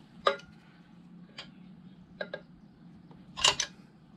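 A wrench and the man's hands working on the Ironhead engine's pushrods and adjusters make about six sharp metal clicks and clinks, spaced unevenly, with the loudest double clink near the end.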